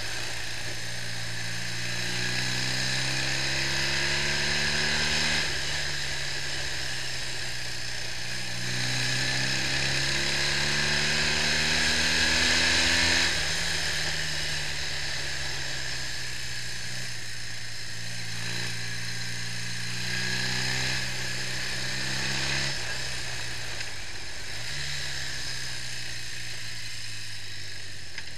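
BMW R65's air-cooled flat-twin engine pulling under acceleration on the road, its pitch rising steadily and dropping sharply at a gear change, twice in the first half. After that it runs steadier, easing off and picking up again, over a steady rushing hiss.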